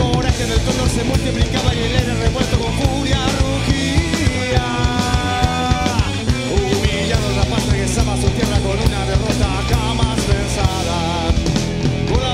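Live rock band playing an instrumental passage: drum kit, bass and guitars, with a lead melody wavering in vibrato. About six seconds in, a held note slides down.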